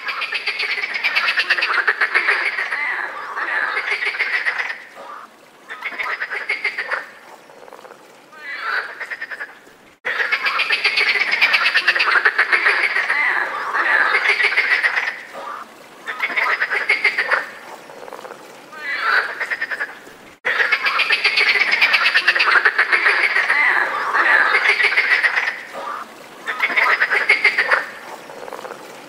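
Chorus of European frogs croaking in the mating season: long spells of fast pulsing croaks from many frogs, broken by short lulls. The same stretch of about ten seconds repeats three times, each restart cutting in abruptly.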